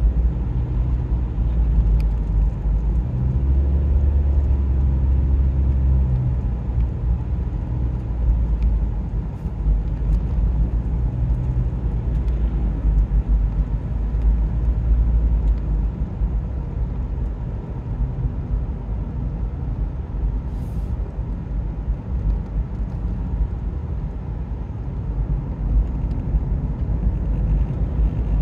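Steady low road rumble and engine drone inside a moving car's cabin, swelling briefly a few seconds in.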